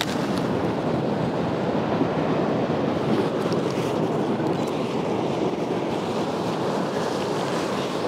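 Ocean surf breaking and washing onto a sandy beach: a steady rushing that holds at an even level.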